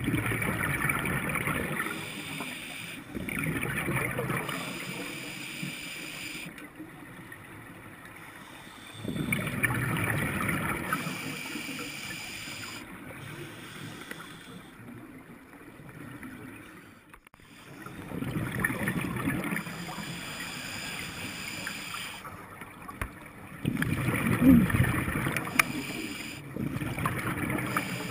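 Scuba diver's exhaled bubbles rushing and gurgling from the regulator, heard underwater in about six bursts a few seconds apart, with a quieter steady underwater background between them.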